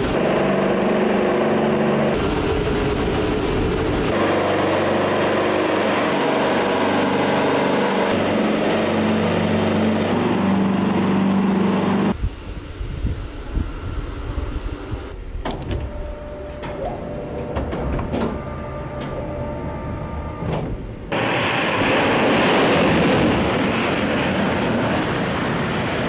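A steady engine drone runs for about twelve seconds. Then comes quieter mechanical whirring with clanks and clicks as the twin missile container of an Utyos coastal launcher swings round on its emplacement. Near the end a loud rushing noise returns.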